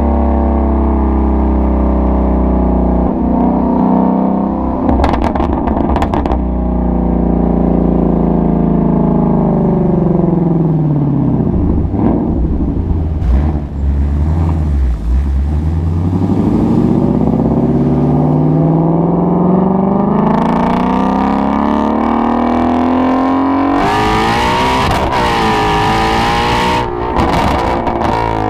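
Ford Shelby GT350's 5.2-litre flat-plane-crank V8 exhaust. The engine note falls slowly for about twelve seconds as the car slows, then climbs steadily as it accelerates. Near the end it turns loudest and harshest for a few seconds under hard throttle, then eases off.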